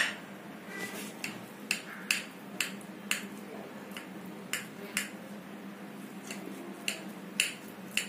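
Knife clicking against the bottom of a glass baking dish while slicing through soft dhokla: a series of sharp ticks, one or two a second, over a faint steady hum.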